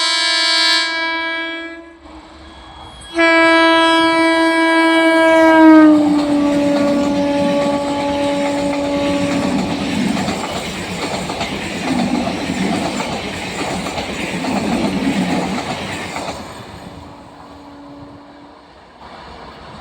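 A passing Indian train: the locomotive's horn sounds at the start, then gives a second long blast whose pitch drops as the train goes by. The wheels then rumble and clatter over the track for several seconds before fading.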